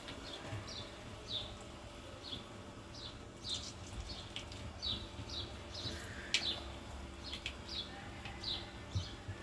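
A bird chirping over and over: short, falling chirps, about one to two a second, over a faint low steady hum.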